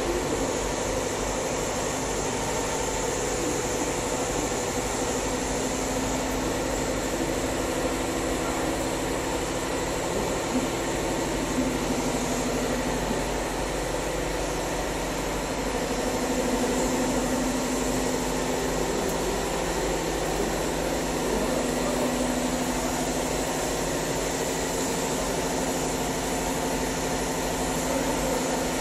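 Steady machine hum with a constant noisy background and a few steady tones, unchanging throughout.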